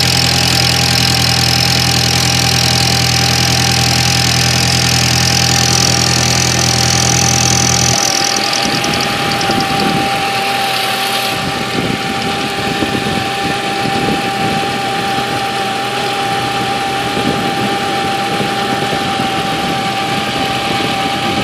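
2003 Audi A4 Quattro's 1.8-litre turbocharged four-cylinder idling shortly after starting, with a loud low drone over it that cuts off suddenly about eight seconds in; the engine keeps idling after the drone stops. The owner does not know what causes the noise.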